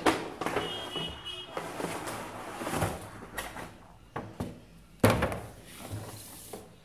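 Cardboard box and its moulded plastic inner tray being handled and slid apart, with scraping and rustling, and two sharp thunks as they knock on the table, one at the start and one about five seconds in.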